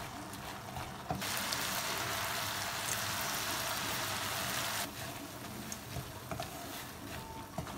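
Halwa sizzling and bubbling in a hot nonstick wok, a steady hiss that turns much louder for a few seconds from about a second in, with scattered light scrapes and taps of a spatula stirring it.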